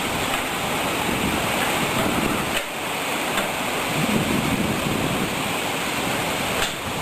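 Steady rushing noise, dipping briefly twice.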